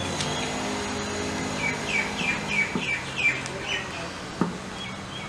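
A bird chirping: a quick run of about eight short chirps, each dropping a little in pitch, about four a second, over a low steady hum. A single sharp tap comes near the end.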